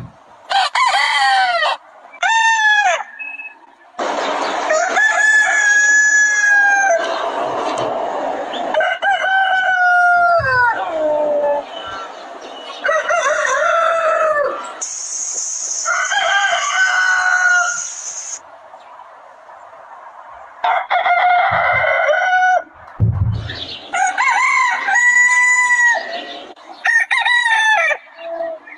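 Several roosters crowing one after another, about a dozen crows, some overlapping, each a pitched cock-a-doodle-doo of one to three seconds. A steady high hiss sounds for a few seconds midway.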